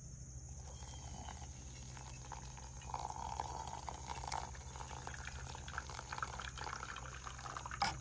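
Hot water poured from a stainless steel pot onto ground coffee in a stainless steel pour-over brewer: a steady splashing trickle that starts about half a second in and grows louder from about three seconds. A brief knock near the end.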